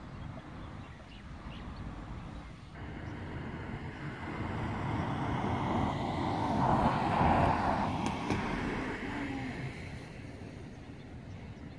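A vehicle passing by: a rush of noise that builds, peaks about seven seconds in, and fades away.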